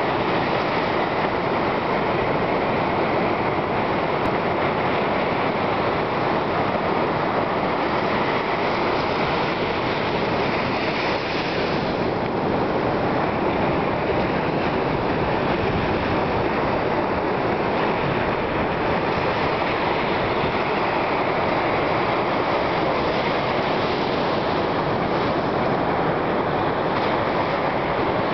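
Steady, unbroken noise of ocean surf on a beach.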